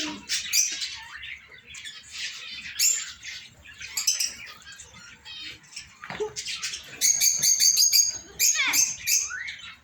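A flock of small cage birds chirping and squawking together in a dense, overlapping chatter of high calls. About seven seconds in, one bird gives a fast run of short repeated chirps.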